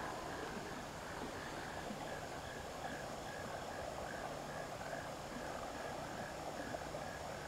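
Faint creek ambience: a soft, even rush of flowing water, with a small chirp repeating steadily between two and three times a second.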